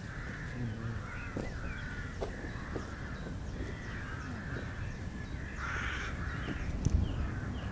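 Crows or other crow-family birds cawing again and again, with a louder, noisier call just before six seconds in, over a low steady rumble. A single sharp knock comes about seven seconds in.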